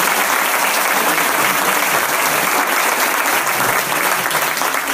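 Large indoor audience applauding loudly and steadily, a dense wash of many hands clapping.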